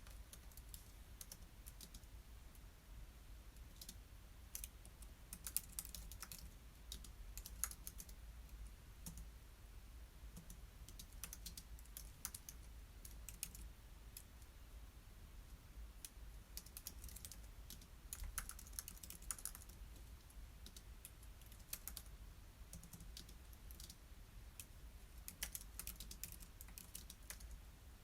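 Computer keyboard typing in short irregular runs of key clicks with pauses between, faint and close, over a steady low hum.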